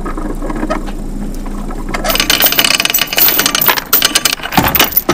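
Anchor chain rattling and clanking over the bow roller as a 15 kg Mantus anchor is hauled up out of the water, starting suddenly about two seconds in.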